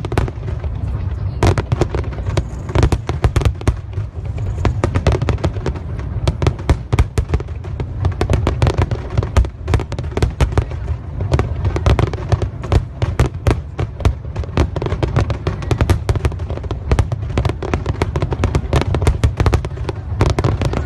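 Aerial fireworks bursting in a rapid, continuous barrage, many bangs a second over a steady low rumble.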